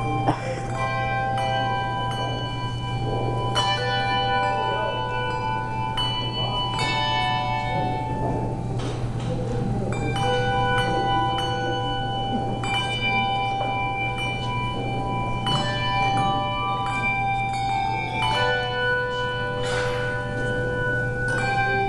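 Hand-bell band playing a tune: many handbells struck in turn, each note starting sharply and ringing on, so that the notes overlap.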